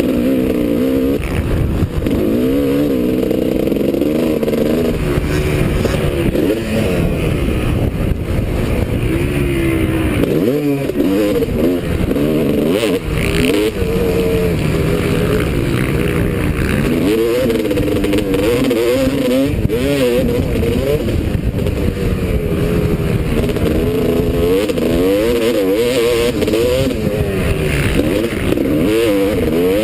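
Several motocross bikes racing, their engines revving up and falling back over and over, the sounds of more than one bike overlapping.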